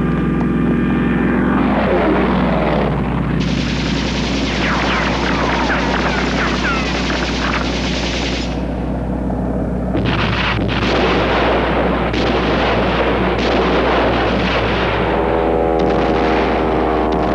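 Film air-raid soundtrack: dense machine-gun fire and explosions over the drone of biplane engines. A falling whine comes about two seconds in, and the steady engine drone stands out again near the end as the planes fly past.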